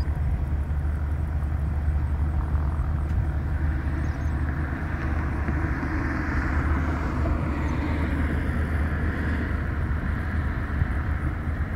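Piper Cub's small piston engine at takeoff power, its drone building from about four seconds in as the plane rolls, lifts off and climbs toward the listener, over a steady low rumble.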